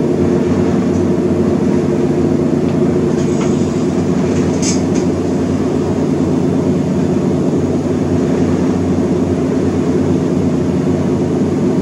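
A steady, unchanging low hum made of several steady tones, like a motor or fan running. There is a faint short tick about four and a half seconds in.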